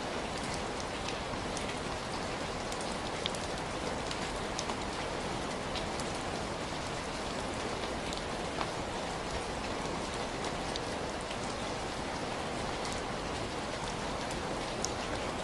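Heavy, steady rain falling, a dense even hiss dotted with sharp individual drop taps.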